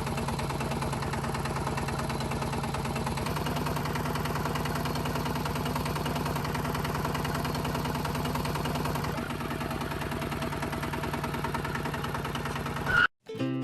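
The small motor of a home-made mini tractor running steadily, with a fast even pulse and a slight shift in tone twice. It cuts off suddenly near the end, and music starts.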